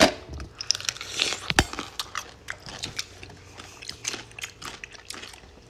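A chamoy-soaked dill pickle being bitten into and chewed: one loud crunch of the first bite right at the start, then repeated crisp, wet crunching and chewing clicks.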